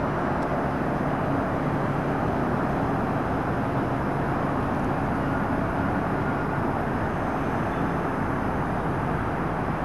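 Steady rumble of a Kyiv metro E-series train running on open surface track as it approaches, blended with the hum of road traffic.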